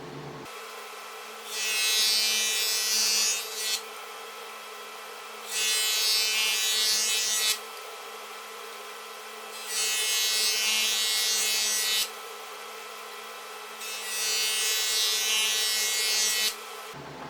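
A power tool cutting or working wood in four separate bursts of about two seconds each, with a steady low hum between them.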